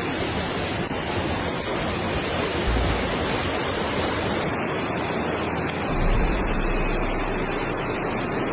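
Steady roar of rushing floodwater, with low rumbling swells about three seconds in and again from about six to eight seconds.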